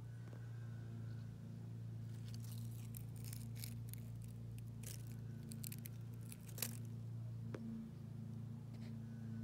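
Twig prodding damp soil at a mole cricket's burrow: a run of soft crackles and scrapes from about two to seven seconds in, with one sharper click near the end of it, over a steady low hum.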